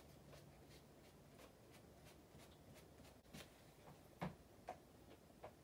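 Near silence: room tone with a few faint clicks and a soft knock a little past four seconds in.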